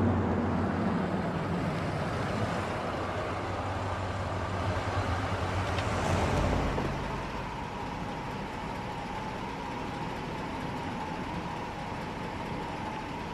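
Car engine running with a low, steady drone. It swells briefly about six seconds in and then drops away, leaving a quieter, steady street hum.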